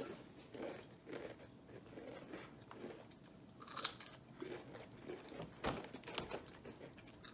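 Ripple-cut potato chips being bitten and chewed: a string of irregular crunches, with one sharper crack a little before six seconds in.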